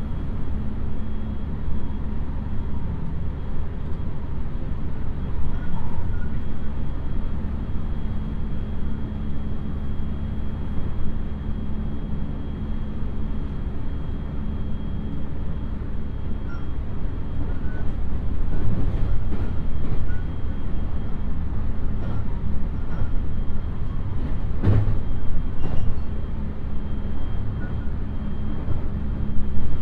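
Steady running rumble inside a JR West 223-series electric multiple-unit train, heard from the passenger cabin. In the second half, the wheels clack several times over rail joints or points, the loudest clack about 25 seconds in.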